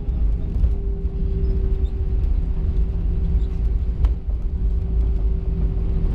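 Airliner cabin noise as the aircraft rolls along the ground: a strong low rumble with a steady hum that sinks slightly in pitch, and one click about four seconds in.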